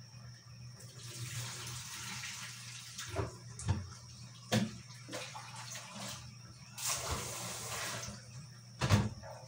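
Pinakbet broth boiling hard in a wok on a gas stove: a bubbling hiss that swells and fades, with a few sharp clicks, the loudest near the end, over a low steady hum.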